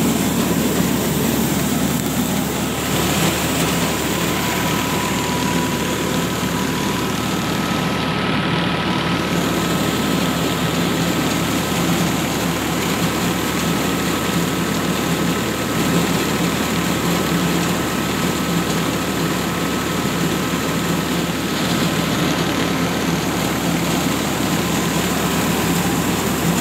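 Tractor-powered mobile rice mill running steadily under load: belt-driven hulling and polishing machinery with the tractor's diesel engine behind it, and a faint steady whine over the din.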